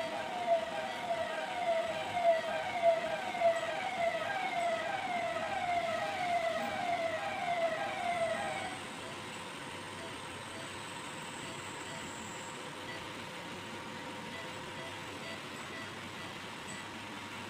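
Electronic siren wailing in quick repeated rising sweeps, about two a second, that stops about nine seconds in, leaving a steady low hum.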